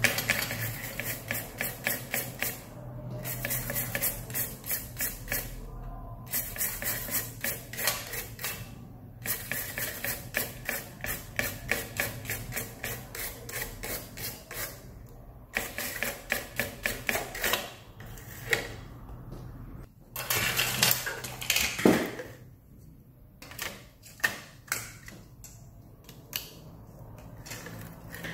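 Toothbrush scrubbing a laptop motherboard, the bristles rasping over the components in quick strokes, several a second, with short pauses. Near the end the scrubbing thins out into a few scattered taps.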